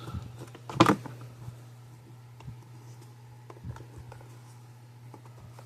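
A small plastic piece on a circuit board snapped off by hand, one sharp snap about a second in, followed by a few light clicks of handling the board.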